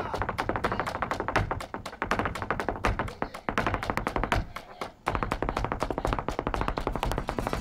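Flamenco footwork (zapateado): shoe heels and toes striking a hard floor in fast runs of more than ten strikes a second, broken by brief pauses about two, three and five seconds in.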